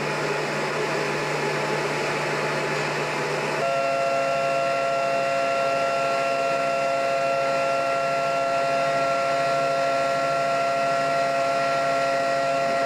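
A ferry's engines and machinery droning steadily. About a third of the way in, the drone changes abruptly to a different, more tonal hum and then holds steady.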